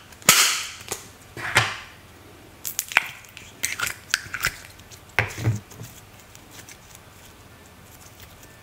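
Plastic lid of a small four-compartment slime container prised open with a crackle, then a series of plastic clicks and sticky slime squelches as a lump of green slime is pulled out. The handling sounds fade to near quiet after about six seconds while the slime is stretched.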